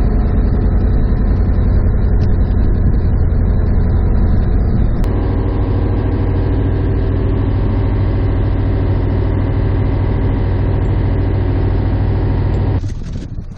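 A fishing boat's engine running steadily with a deep, even hum. Its tone shifts about five seconds in, and it cuts off abruptly about a second before the end.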